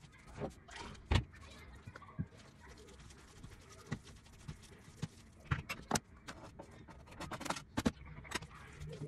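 Scattered clicks and knocks of a fork and hands working minced meat in a plastic bowl, with one louder knock about a second in and quick clusters of taps later on.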